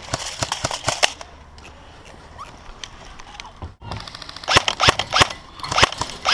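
Airsoft rifle firing in rapid strings of sharp cracks: a quick string in the first second, a few scattered single shots, then a longer rapid volley from about four and a half seconds in.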